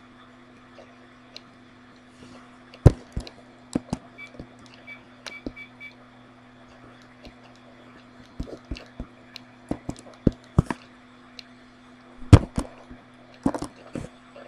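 Irregular sharp clicks of a computer mouse and keyboard, coming in clusters, over a low steady electrical hum. The loudest clicks are about three seconds in and near the end.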